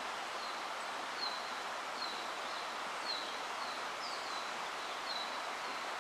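River water running steadily over a shallow riffle. Over it, a bird repeats short, high chirps that fall slightly in pitch, about two a second.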